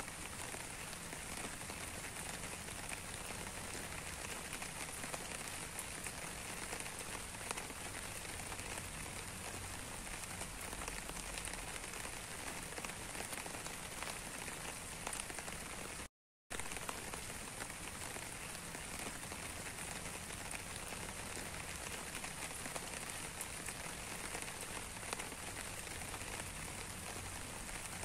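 Steady rain falling, with many separate drop hits heard through an even hiss. The sound cuts out completely for a split second a little past halfway, then carries on unchanged.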